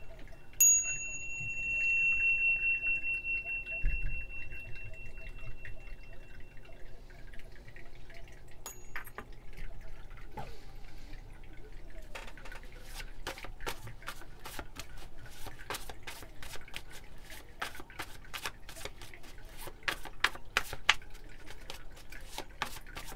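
A small bell is struck once and rings with a clear high tone that fades over several seconds, with a second, lighter strike about nine seconds in. From about twelve seconds in, a deck of tarot cards is shuffled by hand: a rapid patter of card clicks.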